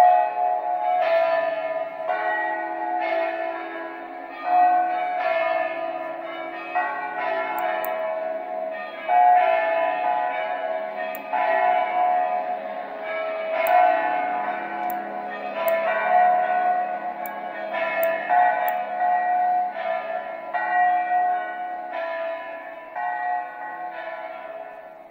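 Bells pealing: a fresh strike about every second, each ringing on long and overlapping the next.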